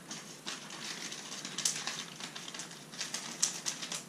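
Plastic lure package crinkling and crackling as it is handled and opened by hand. It gives an irregular run of small crackles, with a few sharper ones about one and a half seconds in and again a little over three seconds in.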